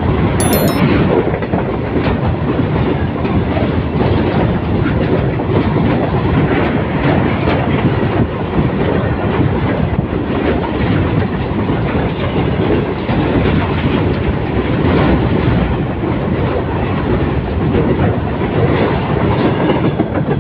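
Freight train of covered boxcar wagons passing close by, its wheels running on the rails in a loud, steady noise.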